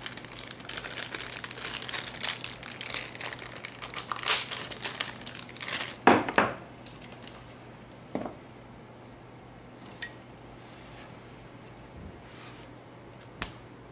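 Crinkling and rustling of something being handled off-camera for about six seconds, then two knocks and a few faint single clicks, the last a sharp click near the end.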